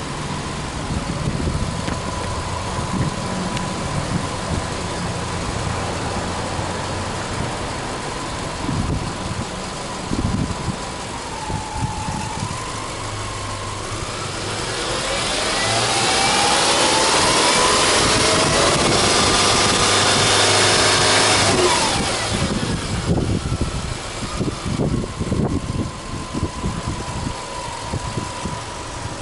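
Subaru Legacy 2.5i's EJ25 flat-four engine idling, then revved once about halfway through: the revs climb over a couple of seconds, are held high for about five seconds, and drop back to idle.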